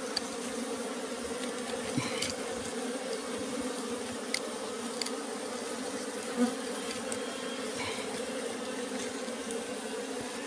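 A colony of wild honeybees buzzing steadily around their comb, which is being cut out of a rock crevice. A few light clicks and knocks of the knife against comb and rock sound over the buzz, the most noticeable about two, four and six seconds in.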